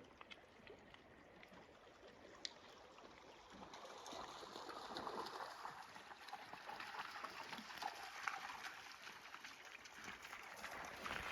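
Faint running water of a river, a steady rushing that grows a little louder about four seconds in, with light clicks over it.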